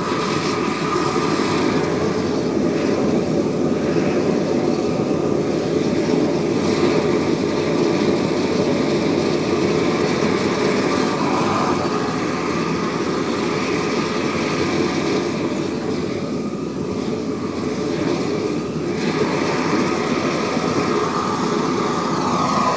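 Propane weed-burner torch burning with a steady rushing flame noise, briefly a little softer about two-thirds of the way through.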